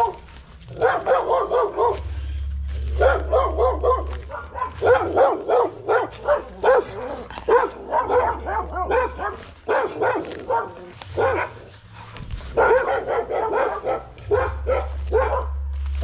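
A dog barking repeatedly, many short barks and yips in quick succession.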